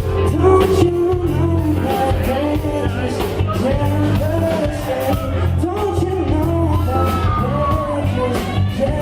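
A rock band playing live, with a singer's voice carrying the melody over bass, guitar and drums.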